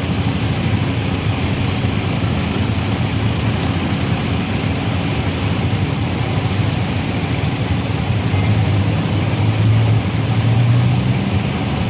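Steady city road traffic: the continuous noise of passing cars and motorbikes with a low engine hum, which grows louder for a couple of seconds near the end.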